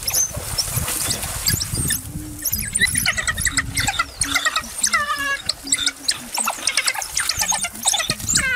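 Pack of African wild dogs twittering: many rapid high-pitched chirps and squeals, some sliding downward, thick and continuous as they mob their prey.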